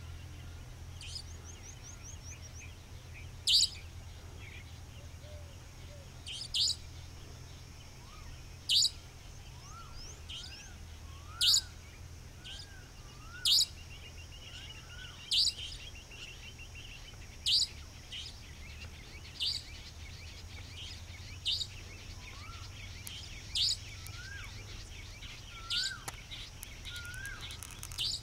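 Savanna nightjar (Caprimulgus affinis) repeating its sharp 'dheet' call, one call about every two seconds, about a dozen in all.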